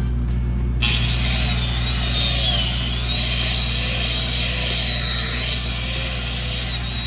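Gas-shielded flux-cored arc welding: the arc strikes about a second in and keeps up a steady frying hiss, over a steady low hum.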